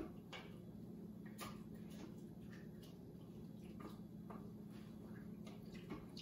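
Wooden spoon stirring stew in a crock pot: faint, irregular taps and scrapes of the spoon against the pot, over a steady low hum.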